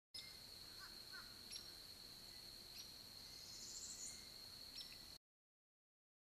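Faint outdoor ambience from a treetop nest-camera microphone: a steady high-pitched whine with a few faint bird chirps and ticks and one brief rising buzzy call near the middle. The sound cuts off suddenly to dead silence about five seconds in, where the stream is buffering.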